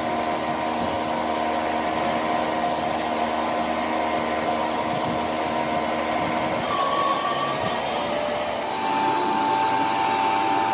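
A machine running steadily with a constant hum. Its tone changes about seven seconds in, and near the end a new steady tone comes in and it gets a little louder.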